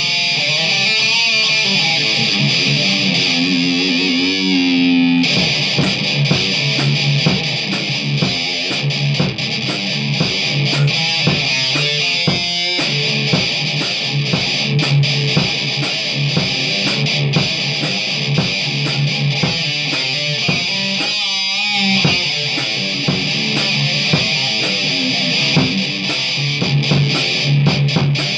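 Electric guitar played as a fast, heavy-metal shred lead, with rapid picked notes. A note bends upward about four to five seconds in, and a wide wavering vibrato comes about 21 seconds in.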